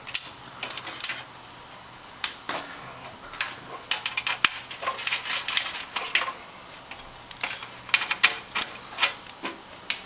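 Brass motherboard standoffs being screwed by hand into a steel PC case's motherboard tray: irregular sharp metal clicks and clinks, coming in clusters.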